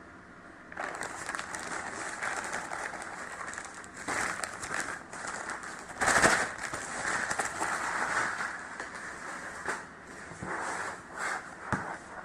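Packaging being handled and opened, with irregular crinkling and crackling and many small clicks. It is loudest about six seconds in.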